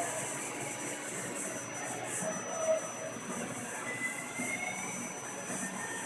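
CNC Swiss-type lathe running under power: steady mechanical noise with a constant high thin whine, and a brief faint squeal about four seconds in.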